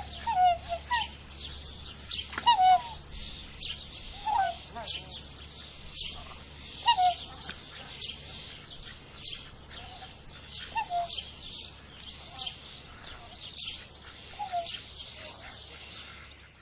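Swan calling: short pitched calls, singly or two or three together, repeated irregularly every second or two, with fainter high chirping behind.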